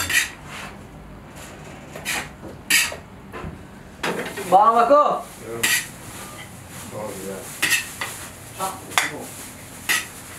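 Perforated metal skimmer scraping and knocking against a large kazan as plov is scooped out, in a string of short scrapes and clinks. A man shouts a word about five seconds in.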